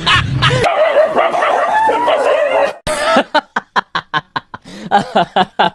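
A dog's high, wavering cries, then from about three seconds in a quick run of sharp barks, four or five a second.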